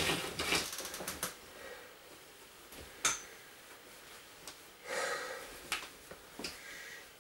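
Rustling and scattered light clicks and knocks of belongings being handled and packed, with one sharper click about three seconds in and a longer rustle around five seconds.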